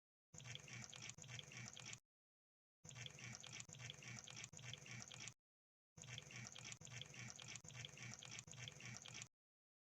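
Crab sound effect: faint, wet crackling and clicking in three stretches of a few seconds each, broken by short gaps of dead silence.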